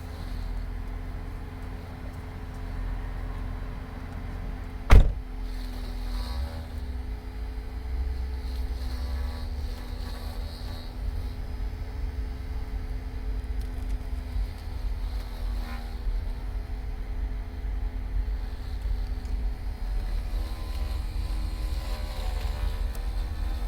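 A Cadillac with a steady low rumble and a steady hum, and a wavering whine that comes and goes several times: the strange noise the car is making. A single sharp click about five seconds in is the loudest sound.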